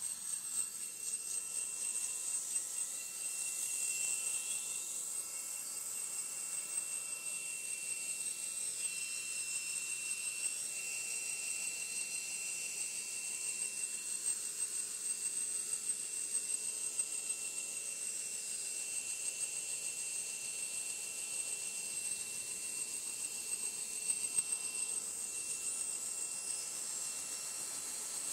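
Steady high-pitched turbine whine from an HH-60G Pave Hawk helicopter during start-up, with a hiss under it.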